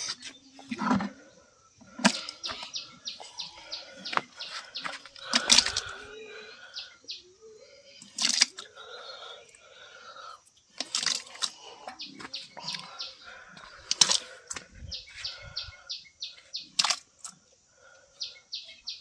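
Cooked rice being scooped by hand from a large metal cooking pot and dropped into a plastic bucket, with soft wet plops and scrapes. Runs of short, high chirps repeat throughout.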